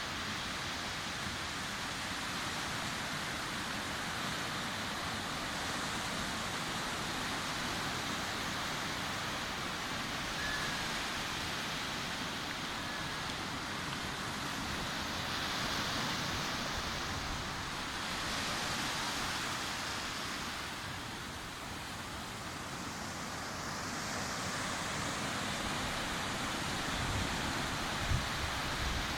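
Sea waves washing onto a beach: a steady surf hiss that swells and eases as waves come in, with a few low thumps near the end.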